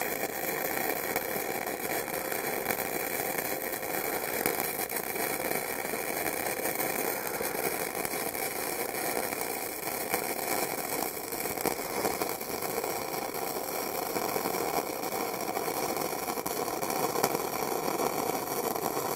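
Flux-core arc welding: the steady crackle of the arc from an Easy-Flux 125 flux-core welder running .030 wire as one continuous bead fuses a stainless steel V-band flange to mild steel exhaust pipe.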